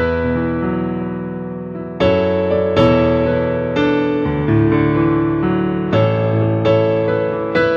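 Solo piano playing slow, held chords. A new chord is struck every second or so and rings on as it fades.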